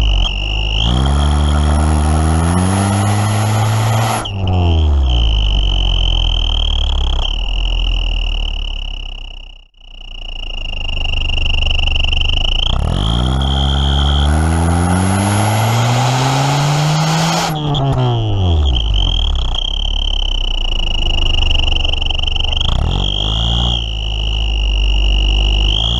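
A turbo whistle jammed into a 1999 Honda Civic's narrow exhaust tailpipe, whistling a steady high note over the running four-cylinder engine. The engine is revved up twice and falls back, the whistle's pitch rising with each rev. It is really loud, with the whistle nearly filling the pipe and building back pressure that the engine did not like.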